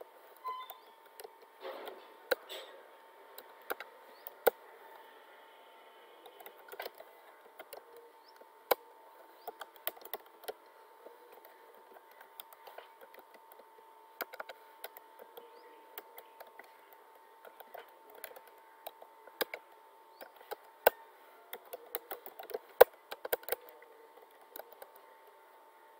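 Computer keyboard typing: irregular, uneven key clicks in short runs with pauses between them, over a faint steady hum.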